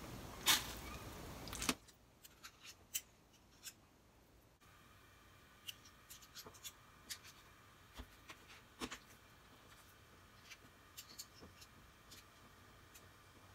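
Faint, scattered clicks and scrapes of two metal spoons tapping against each other while shaping minced chicken dumpling mixture into a pot of broth. A low background hiss cuts off about two seconds in.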